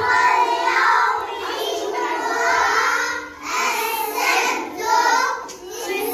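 Young children's voices singing together in a classroom, a sung lesson chant in phrases with short breaks between them.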